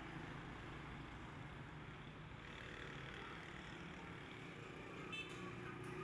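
Faint outdoor street ambience: a steady low hum of distant traffic, with a brief high chirp about five seconds in.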